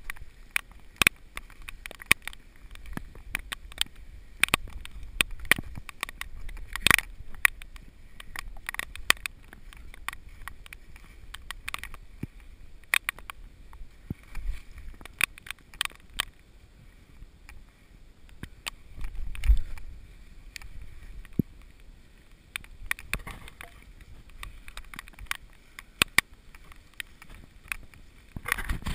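Rain and wet brush striking a GoPro Hero 2's waterproof housing as it is carried through the woods: irregular sharp ticks, several a second, over a low rumble of handling noise, with one heavier bump a little past the middle.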